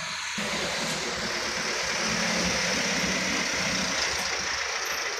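Light truck's diesel engine running under load as it climbs past close by, with tyre noise. It is loudest about halfway through.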